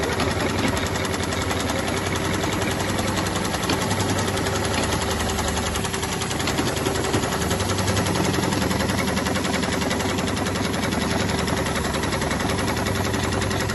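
Dürkopp Adler heavy-duty industrial sewing head running continuously on an automatic belt-sewing machine, stitching a work belt: a fast, even needle rhythm over a steady hum.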